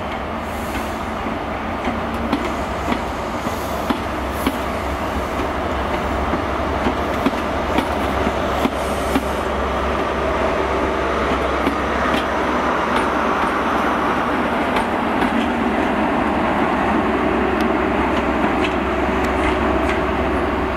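GWR Class 43 High Speed Train passing, its Mark 3 coaches rumbling over the rails with scattered clicks from the wheels crossing rail joints. The sound grows louder about halfway through as the Class 43 diesel power car comes by, adding a steady engine drone.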